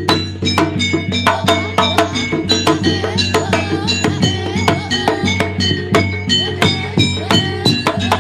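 Jaranan gamelan music played live: rapid, interlocking strikes on ringing metal gamelan instruments over drumming, with a steady low drone underneath.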